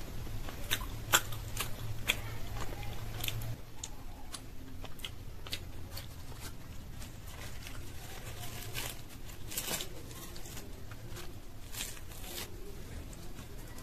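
Close-miked eating sounds: scattered clicks of chewing, then crisp crackles and rips as fingers tear apart a deep-fried green-peas kochuri near the end.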